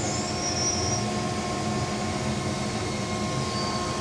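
Steady mechanical hum with several constant tones, like a fan or air-conditioning unit running, with a few faint short high whistles over it.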